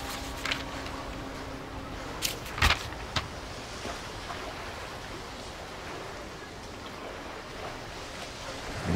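Paper pages of a ring-bound book being flipped: a few short rustles in the first three seconds, the loudest a little over two seconds in, over a steady low background hiss.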